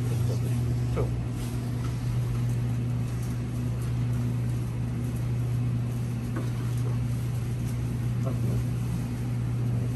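Steady low machine hum, with a few faint clicks and clatters.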